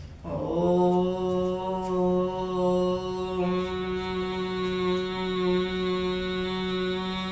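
A woman chanting a single long 'Om' as a pranayama breathing exercise, held on one steady pitch after a brief gliding start. The tone turns brighter about three and a half seconds in.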